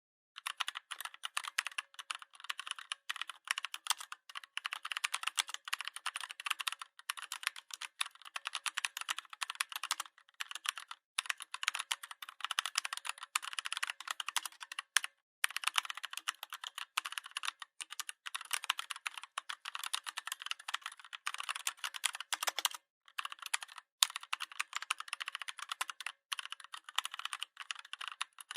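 Computer keyboard being typed on: fast, continuous key clicks in runs, broken by short pauses now and then.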